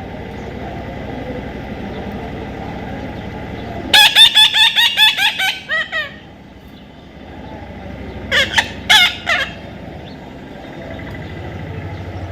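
A parrot calling: a fast run of about a dozen short, loud, harsh calls, then a shorter burst of three or four more a few seconds later.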